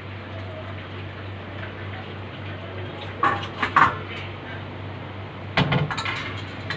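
Metal pot clattering against a stainless steel bowl as cooked instant noodles are tipped out of it: a burst of knocks about three seconds in and another near the end, over a steady background hum.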